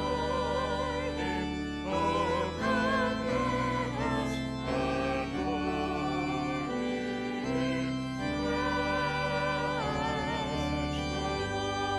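Women's vocal group singing together into microphones with vibrato, over sustained held accompaniment chords that shift every second or two.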